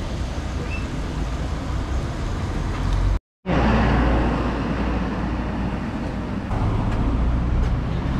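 Steady rumbling background noise, broken by a brief dead silence about three seconds in and louder after it.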